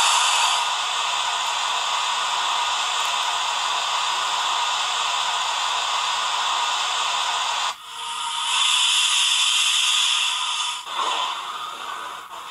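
Model steam locomotive's sound decoder playing steam hiss: a steady hiss that breaks off briefly about eight seconds in, comes back louder, then stops again and turns uneven near the end.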